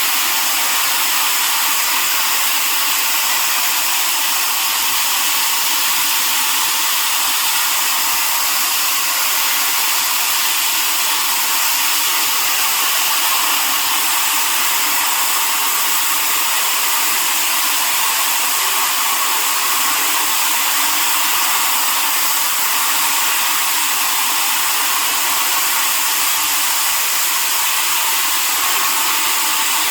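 Floor sander with 80-grit paper running steadily over a garage floor to scuff and prep it: an even, unbroken whirring rush with no clear tone.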